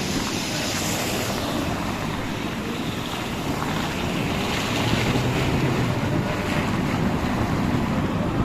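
Heavy rain with wind buffeting the microphone: a steady rushing hiss with a gusty low rumble underneath.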